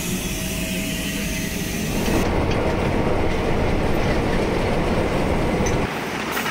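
Steam locomotive sounds in quick cuts: first a steady noise with a faint held tone, then about two seconds in a louder, denser running noise in the locomotive's cab, cutting off abruptly to a quieter sound near the end.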